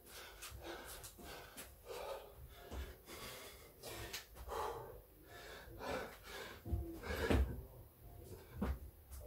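Hard breathing and panting between burpee reps, then dull thuds of hands and feet landing on the floor as the exerciser drops down into a burpee, a few seconds in and again near the end.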